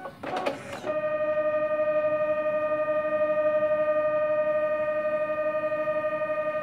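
Fargo HDP5000 retransfer card printer at work: a brief mechanical rattle about half a second in, then a steady motor whine with a fine, rapid flutter as the printer moves into its transfer stage, laying the printed film onto the card.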